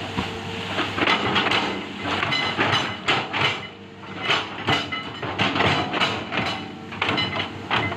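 Hitachi ZX200 hydraulic excavator at work: an irregular run of loud metallic clanks and scrapes with short high squeals, starting about a second in and dipping briefly near the middle.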